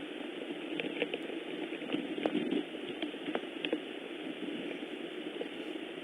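Steady rain falling, with scattered heavier drops ticking sharply through the hiss.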